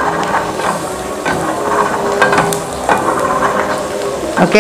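Julienned ginger sizzling and crackling in hot oil in a small frying pan, being fried until fragrant.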